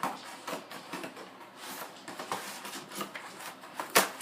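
Cardboard box and packaging being handled and opened: scattered rustles, scrapes and light taps, with one sharp knock near the end.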